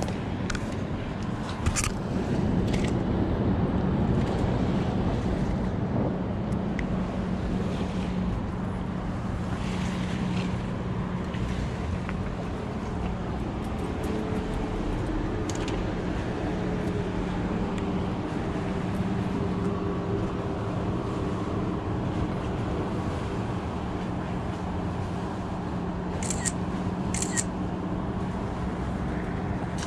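Steady low engine hum with a constant drone, with a few light clicks and knocks scattered through it.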